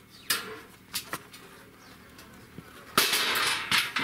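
Heavy steel plates of a slot-together fire basket clanking against each other as they are fitted: a few light knocks in the first second or so, then a louder scraping clank about three seconds in and another knock just after.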